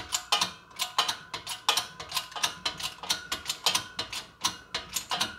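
Small 12-ton Harbor Freight shop press being worked, a rapid run of sharp mechanical clicks about four a second, as a new carrier bearing is pressed down onto the differential carrier.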